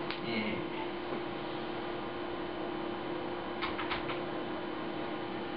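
Steady electrical hum with a faint hiss, and a few light clicks about two thirds of the way in.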